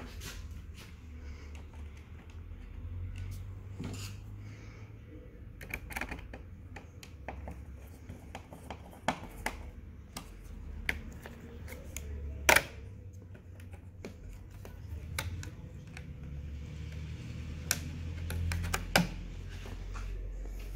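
Scattered clicks and knocks of tools and parts being handled on a workbench, the loudest about twelve seconds in, over a low steady hum.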